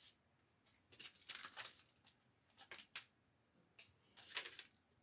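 Faint crinkling of a clear plastic packaging sleeve being handled and pulled open, in a few short bursts.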